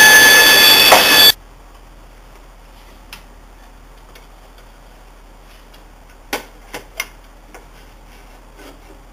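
Band saw running with its dust extraction, a loud steady whine that stops abruptly about a second in. After it, a few light clicks and taps of hands handling small parts on the saw's metal table.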